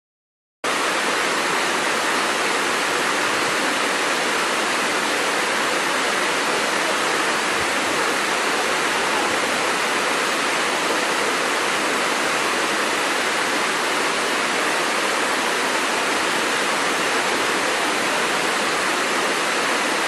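Waterfall: the steady rush of falling water, an even hiss with little deep rumble, starting abruptly about half a second in.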